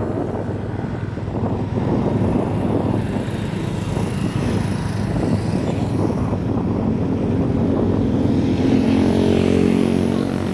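Motorbike and street traffic running steadily, with one engine louder about eight to ten seconds in.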